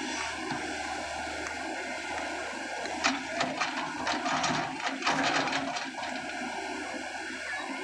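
Tata Hitachi EX200 excavator's diesel engine running steadily, with a burst of clattering knocks between about three and six seconds in as the bucket digs into the rubble-strewn ground.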